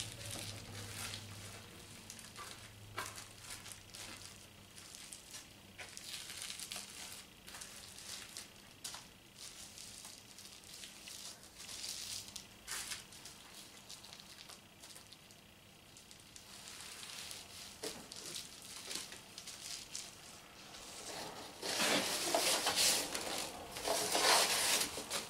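Soft rustling and crinkling of plastic packaging with scattered light clicks. Near the end it becomes a louder, denser scratchy rustle as hands dig through foam packing peanuts in a cardboard box.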